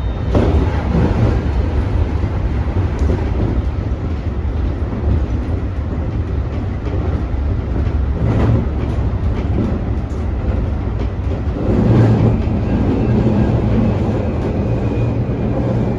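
Toei 5500 series electric train running on the rails: a steady low rumble of wheels and running gear, with a few louder knocks from the track about half a second in, near the middle, and again about twelve seconds in. A faint high tone comes in over the last few seconds.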